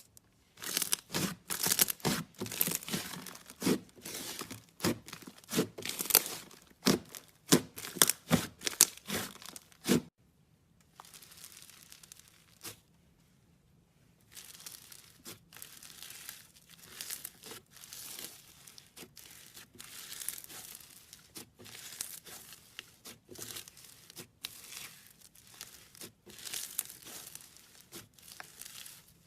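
Slime being squeezed and stretched by hand, making sticky crackling and popping sounds. The crackling is loud for about ten seconds, pauses briefly, then goes on more softly.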